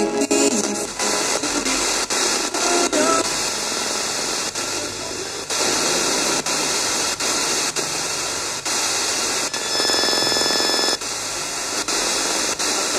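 FM static hissing from a Warata portable radio as its tuning dial is turned between stations, broken by frequent short clicks and brief snatches of broadcast voices as the dial passes stations.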